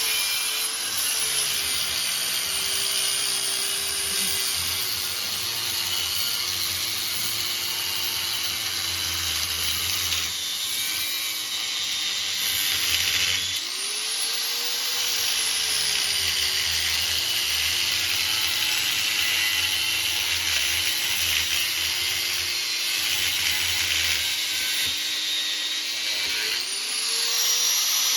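Angle grinder with a cutting wheel cutting through steel brackets on a Volkswagen front end: a steady whining motor over a harsh grinding hiss. The motor's pitch sags under load and climbs back when the wheel comes off the cut, about halfway through and again near the end.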